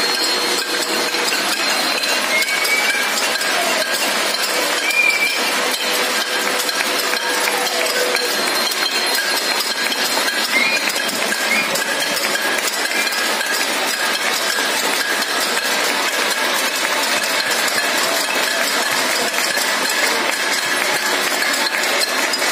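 Many people clapping and banging metal utensils at once, a continuous dense din of claps and metallic clinks, with a few steady held tones over it.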